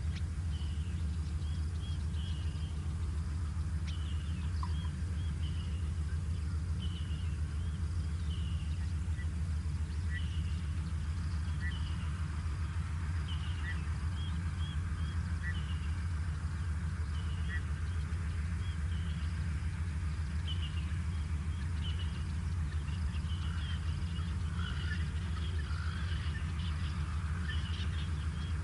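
Small birds chirping, short high chirps repeated every second or so, over a steady low rumble.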